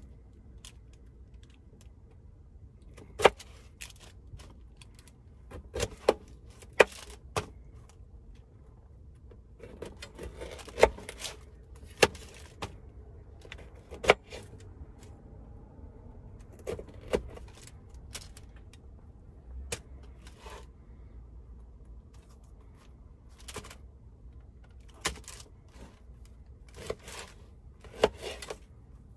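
Irregular sharp clicks and knocks with short stretches of rustling, as of small objects being handled and set down.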